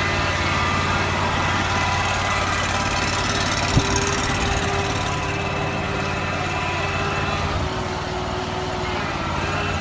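Skid steer loader's engine running steadily as the machine is driven, with a steady whine above the engine note. A single sharp knock comes about four seconds in.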